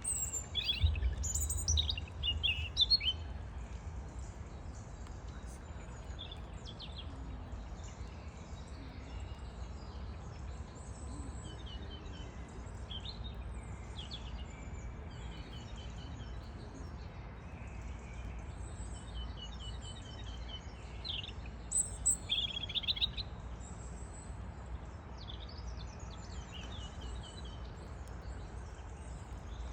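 European robin singing: short, varied high chirps and trills in repeated phrases, loudest near the start and again about two-thirds of the way through, over a steady low rumble.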